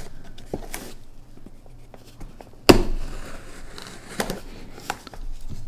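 Chris Reeve Umnumzaan folding knife slicing through packing tape along a cardboard box seam, with crinkling and scraping of the tape and cardboard. A sharp knock about two and a half seconds in, with a few lighter clicks after it.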